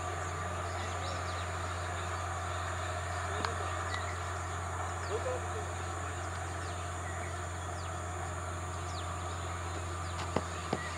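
Outdoor ambience: a steady low hum with short, faint bird chirps now and then, and two sharp knocks near the end.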